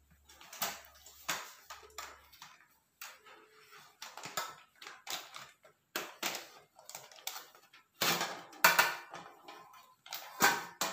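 Metal springform cake pan being unclipped and the cake lifted out on its parchment: a run of small clicks and metal knocks with parchment paper crinkling, loudest about eight seconds in and again near the end.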